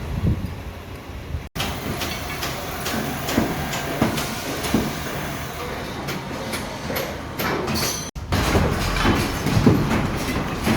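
Construction machinery running, with scattered metallic clanks and knocks; the sound breaks off for an instant twice.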